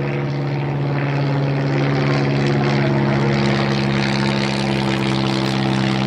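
Portable fire pump's engine running steadily at high revs, holding one constant pitch.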